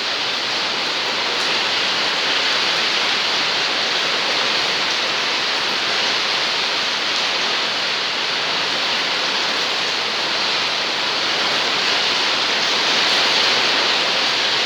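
Heavy rain pouring down in a strong windstorm: a dense, steady hiss that swells slightly near the end.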